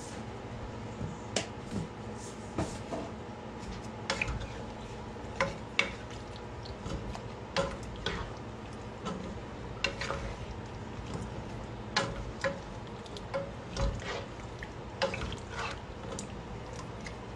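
Wooden spatula stirring a thick, saucy chicken curry in a pan, with wet squelching of the coconut-milk sauce and irregular knocks and scrapes against the pan.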